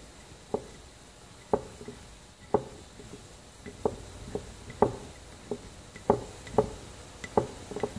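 Threaded steel shaft being turned by hand into a hole in a steel hex nut clamped in a bench vise, giving sharp metal clicks and creaks, about one a second at first and closer together later.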